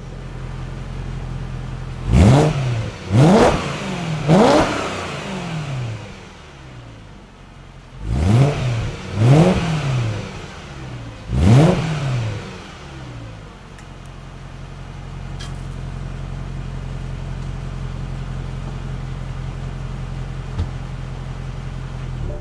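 BMW E92 M3's 4.0-litre V8 on the stock exhaust idling, then blipped six times in two groups of three, each rev rising sharply and dropping back to idle, with the engine nearly warm. It settles back into a steady idle for the last several seconds.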